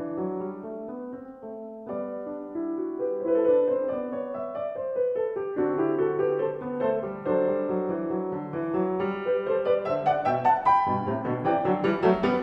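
Background music played on piano, with notes moving steadily and growing fuller toward the end.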